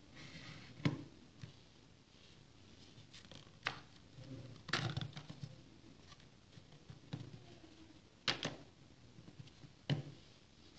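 Handling sounds of a selfie stick and a small wooden block: about five scattered clicks and knocks, some doubled or with a short rattle, as the stick's metal shaft is worked in the block's hole and the pieces are set down on a table.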